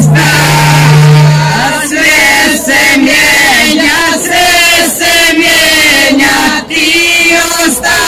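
A group of women singing a traditional village folk song together through a PA system, in long held notes that bend and waver. A low steady tone sounds under the voices for the first two seconds.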